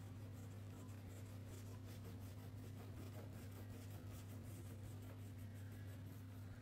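Faint scratching of a wax crayon colouring on paper, in quick repeated back-and-forth strokes, over a steady low electrical hum.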